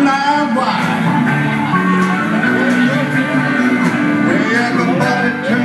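A live band plays amplified on guitars, acoustic and electric, with a steady rhythm.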